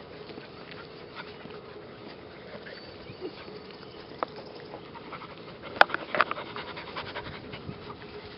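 Eleven-week-old mixed-breed puppies panting and scuffling close by as they play in grass, with a sharp click about six seconds in followed by a quick run of panting strokes.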